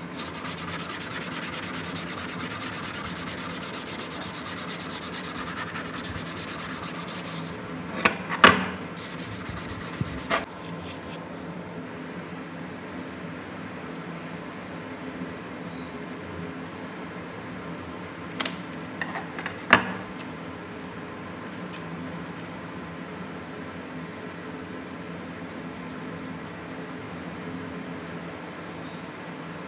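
A pad rubbing metal polish over a steel chisel blade, a steady scrubbing hiss, loudest for the first seven seconds or so, then quieter. A few sharp knocks come about eight to ten seconds in and again around twenty seconds in.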